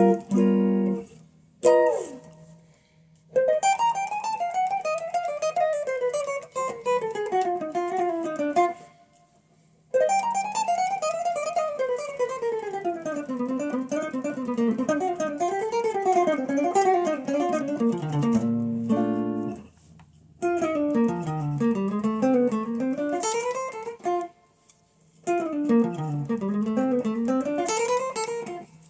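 Electric guitar strung with light nines, its action freshly raised to stop a buzz, played in quick single-note runs that climb and fall. The runs come in several phrases with short pauses between them.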